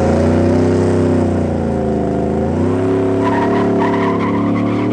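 Drag-racing car engine revved up hard and held at high revs, dipping briefly about halfway, with tires squealing through the second half.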